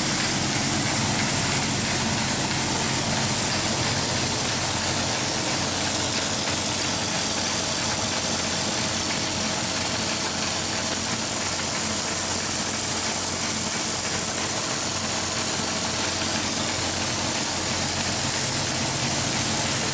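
DoAll ZEPHYR ZW-3620 36-inch high-speed vertical band saw running steadily in high range: an even mechanical hiss and hum with a few faint steady tones.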